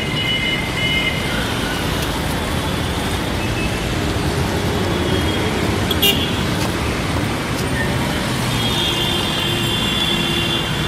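Dense city road traffic: a steady wash of engines and tyres, with car horns sounding up to about a second in and again for the last two seconds. A sharp click comes about six seconds in.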